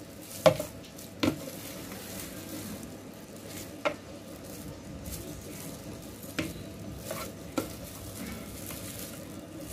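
A spoon stirring roasted cashews and raisins in a glass bowl, with about six sharp, separate clinks of the spoon against the glass spread over several seconds, over a low, steady background.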